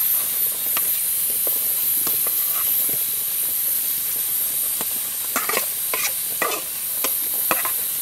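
Shredded zucchini tipped from an aluminium bowl into a hot pan of onions, with a steady sizzling hiss. Scattered scrapes and knocks of the wooden spoon and bowl against the pot, most of them past the middle.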